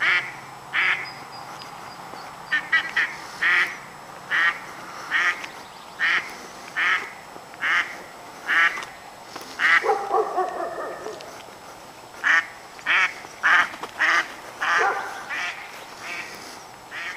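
Hen duck quacking over and over, short quacks about once a second: a mother duck calling her brood as she leads her ducklings along.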